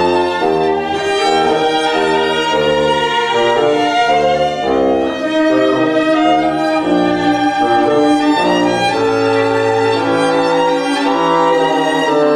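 Live chamber music for two violins, viola and bassoon: the instruments play held notes together, the chords changing every second or so.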